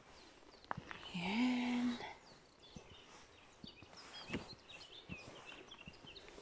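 Small birds chirping faintly, with many short, quick calls through the second half. About a second in, a person gives a brief hum that rises in pitch and then holds.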